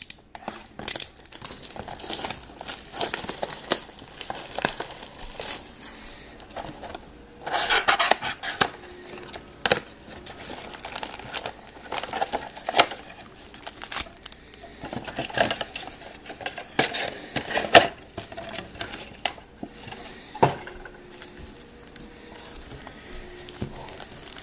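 Plastic wrapping crinkling and tearing as a sealed box of hockey cards is opened, with scattered sharp clicks and taps of cardboard. The rustling comes in irregular swells.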